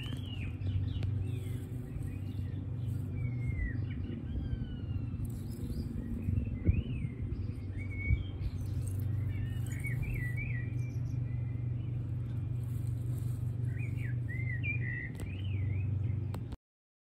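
Small birds chirping and singing in quick rising and falling phrases over a steady low rumble. Two brief knocks stand out about seven and eight seconds in, and the sound cuts off abruptly near the end.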